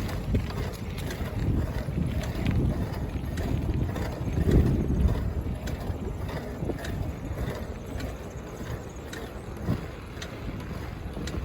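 Wind buffeting the microphone in gusts, the strongest about four and a half seconds in, with scattered faint ticks.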